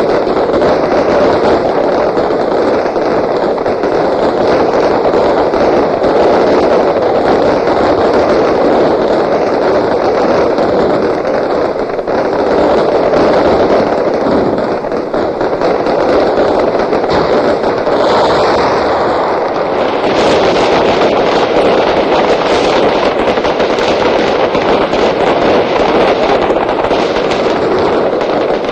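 Fireworks display: a dense, unbroken run of bangs and crackling, growing sharper and brighter about twenty seconds in.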